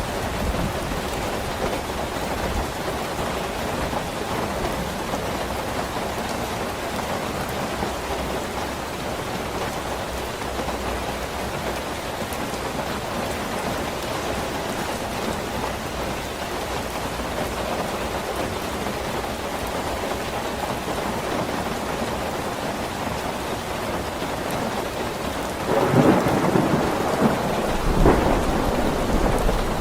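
Steady rain falling in an even hiss. Near the end a louder, low rumbling swell rises over it twice.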